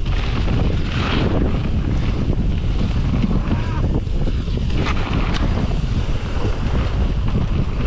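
Wind buffeting a bike-mounted action camera's microphone at speed, over the rumble of mountain bike tyres on a dirt trail, with a few short rattling clicks from the bike about five seconds in.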